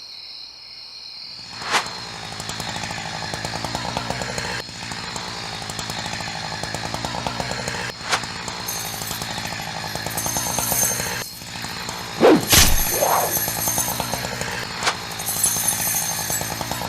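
Chainsaw running steadily at a buzzing pitch. Over it come a few sharp hits, with the loudest, sweeping swooshes about twelve seconds in.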